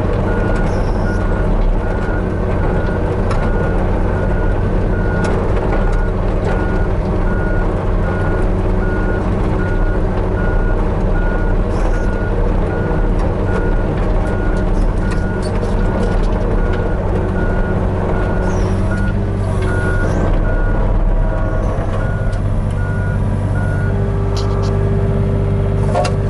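Hitachi 35U mini excavator's diesel engine running steadily under work, with its travel alarm beeping evenly as the machine tracks; the beeping stops near the end while the engine keeps running. Occasional knocks of the machine working stone break in.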